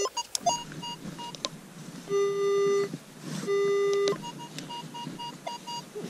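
Metal detector sounding off over a deep buried target: two long, steady low tones, each under a second, and between them runs of short, rapid higher-pitched beeps as the coil is swept back and forth. It is the deep signal the detectorist hopes is a coin.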